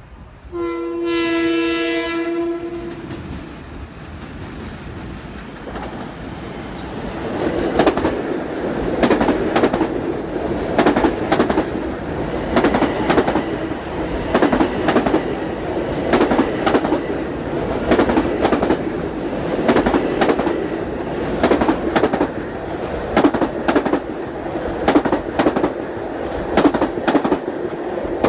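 One long horn blast from a Long Island Rail Road electric train, an M7 set hauling M9 cars on horn tests, lasting about two seconds as it approaches. Then the train passes close by, with steady rolling noise and repeated clickety-clack of its wheels over the rail joints, louder from about six seconds in.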